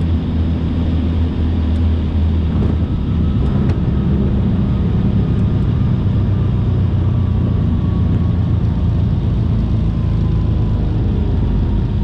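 Cabin noise of a Piper Aerostar 700 piston twin rolling out on the runway after touchdown, engines pulled back to low power: a steady low drone with rumble. A faint whine slowly falls in pitch as the aircraft slows.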